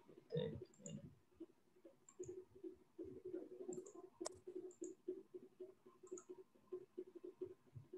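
Faint computer mouse clicks, a few scattered through, one sharper click about four seconds in, over a quiet background.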